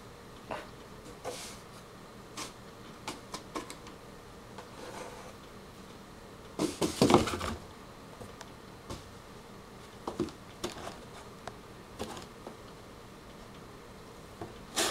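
Scattered light scratches, taps and rustles of cats pawing and batting at a cardboard box, with a louder scuffle about halfway through.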